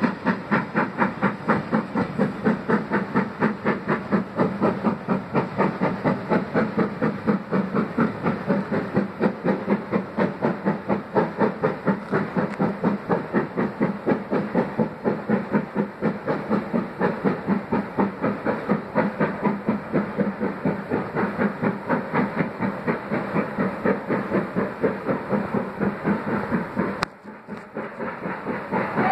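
Exhaust beats of BR Standard Class 4MT 2-6-4T tank engine 80136, a slow, even rhythm as the locomotive struggles up the gradient. The sound cuts off abruptly near the end, leaving something fainter.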